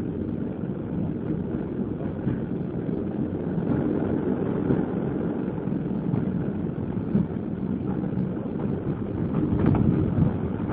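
Passenger train running at speed, heard from aboard: a steady rumble of wheels on the rails, with a few faint clicks near the end.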